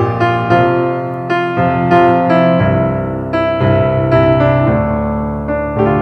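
Piano music: notes struck about three a second in a repeating pattern over held low chords that change every couple of seconds.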